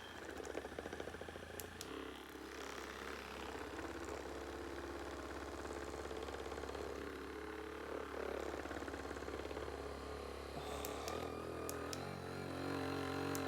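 Percussive massage gun (Addaday BioZoom) running with its trigger-point attachment against the sole of the foot: a steady, fairly quiet motor hum with fast pulsing. The tone shifts about two seconds in and again near the end.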